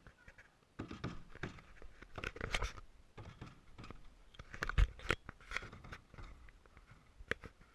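Irregular clicks, scrapes and knocks of a portable basketball hoop's metal backboard frame and rim being handled, picked up at the camera mounted on it. There is one heavier thump nearly five seconds in.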